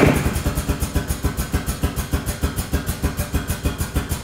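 Air-driven hydraulic pump of a pneumatic drum tipper running as the clamp arms are released, with a rapid, even pulsing and a sharper burst right at the start.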